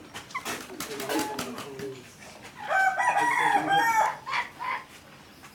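Chickens clucking, then one loud rooster crow that lasts about a second and a half, starting a little past halfway.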